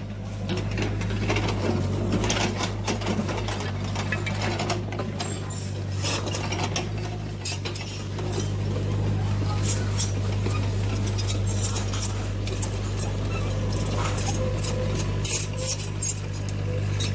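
Remote-controlled model excavator working: a steady motor hum under many short clicks and scrapes as its gears turn and the bucket digs into soil.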